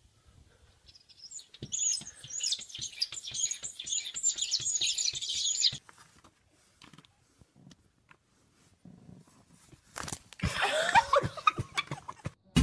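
Cat's claws scratching rapidly at a door for about four seconds. About ten seconds in comes a shorter, louder sound that glides in pitch.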